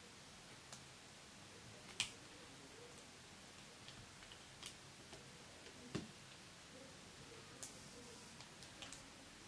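Faint, scattered clicks and snaps of small rubber loom bands being stretched and slipped onto a small plastic loom tool. The two sharpest clicks come about two seconds and six seconds in.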